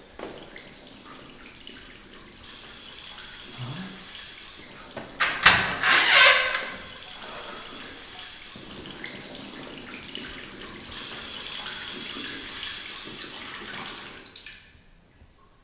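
Water running from a basin tap in a washroom during hand-washing, a steady hiss that is shut off near the end. About five seconds in there is a short, loud rush of noise, the loudest moment.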